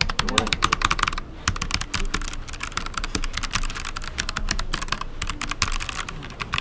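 Typing on a Hansung TFG ART mechanical keyboard with ART BOX white clicky switches: a fast, dense stream of sharp key clicks, with a brief pause a little over a second in.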